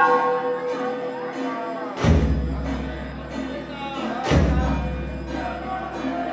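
Large drum struck slowly, three heavy beats about two seconds apart, each booming and dying away, over the fading ring of a struck bell and music or chanting.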